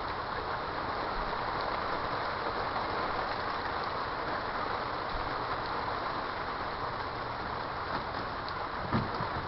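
Steady rain falling, an even hiss with no breaks, with a single short low thump near the end.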